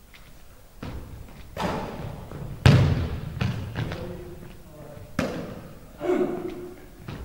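Basketball thudding against a hardwood gym floor during passing and dribbling, echoing through a large hall; a string of separate thuds, the loudest about three seconds in.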